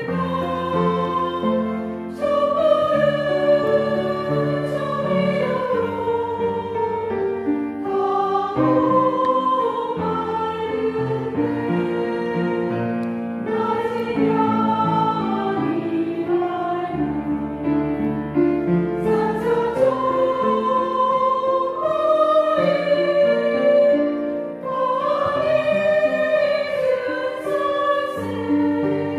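A women's choir singing a Korean Buddhist hymn in unison, accompanied by an upright piano.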